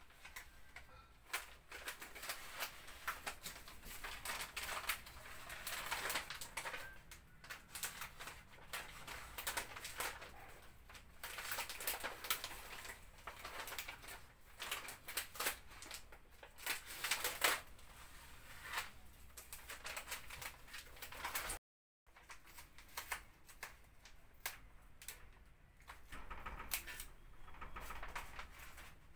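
Sheet of frosted privacy window film crackling and rustling as it is handled, with many sharp crinkles.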